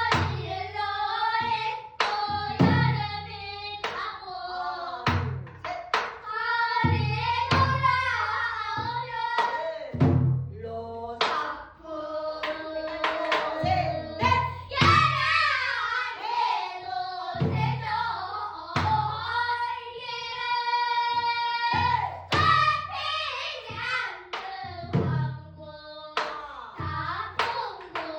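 A voice singing pansori, with long wavering held notes and sliding pitch, punctuated now and then by sharp drum strokes.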